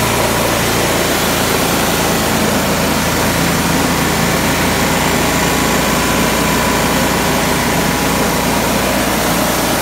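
Honda GX160 5.5 HP single-cylinder petrol engine running steadily, driving a steel dry-coffee huller, with the loud even machine noise holding unchanged throughout.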